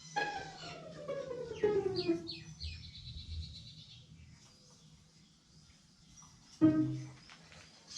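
Bird calls over background music: a long falling call in the first couple of seconds, a quick run of high chirps, and a short, louder low call near the end.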